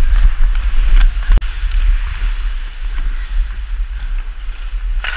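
Wind buffeting a helmet-mounted action camera's microphone as the wearer skates, over the hiss of ice skate blades on the ice. A few sharp knocks come in the first second and a half, the loudest about a second and a half in, and the rush eases after that.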